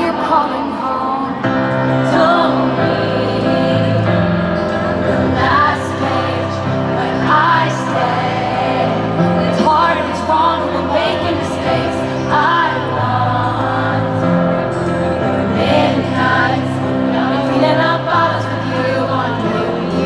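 Live solo piano ballad: a woman singing over held piano chords, heard through a large stadium's sound system.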